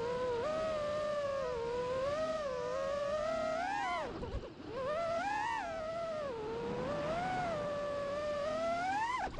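FPV quadcopter's brushless motors and propellers whining, the pitch rising and falling with the throttle. The whine climbs and then drops away about four seconds in as the throttle is cut for a dive, spools back up, and climbs steeply near the end before falling off.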